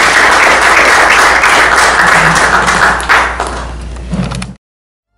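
Audience applauding, thinning out after about three seconds and then cutting off abruptly.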